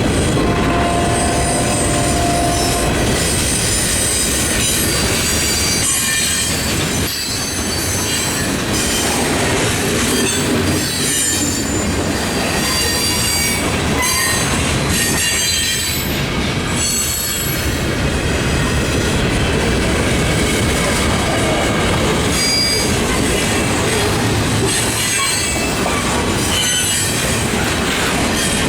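CPKC freight train rolling past, wheels squealing against the rail with thin high-pitched tones over the steady rumble of the wheels.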